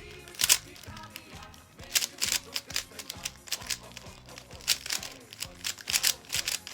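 Rapid, irregular clicking and clacking of a speedcube's layers being turned in quick runs during a timed solve, with music playing underneath.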